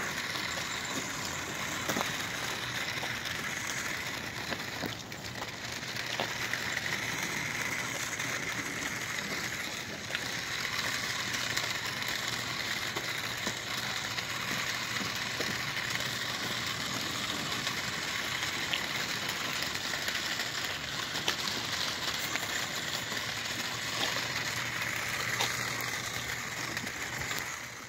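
Toy RC Ford Bronco running along pavement: the small electric motor and plastic gearbox whirring steadily, with the hard plastic tyres rolling over concrete and asphalt.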